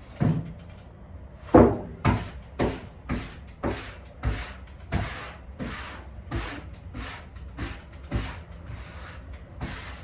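Repeated rubbing strokes on a grand piano's lacquered finish during polishing, about two a second, each stroke brief and fading quickly, with the loudest one about a second and a half in.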